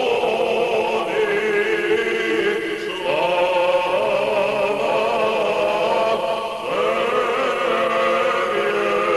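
Choir singing a slow chant in long held notes that shift in pitch every couple of seconds.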